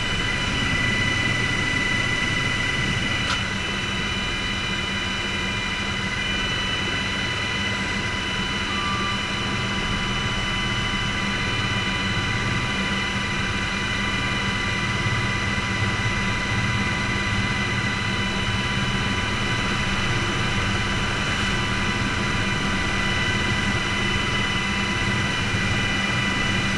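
Helicopter turbine engines and rotor running steadily, heard inside the cockpit: a constant high whine over a low drone.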